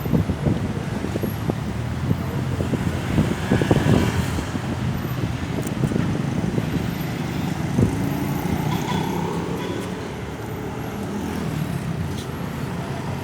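Road traffic noise: vehicles passing by with a steady low rumble, with no siren heard.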